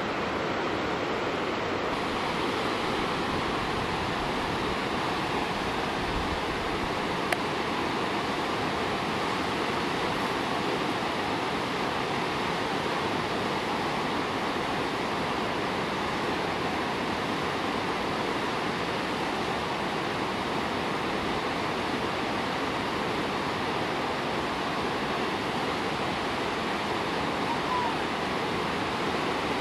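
Whitewater river rapids rushing steadily, a continuous even wash of water noise, with one brief click about seven seconds in.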